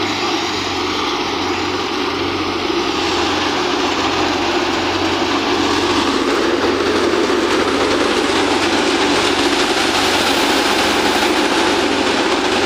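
Wheat thresher running steadily while wheat straw is fed into it: a continuous mechanical drone and rush with a pulsing low hum, growing louder and fuller about halfway through.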